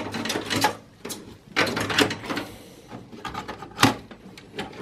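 A computer motherboard being lifted and worked out of a desktop tower's metal case: two short bursts of clattering and scraping, then a single sharp click near the end.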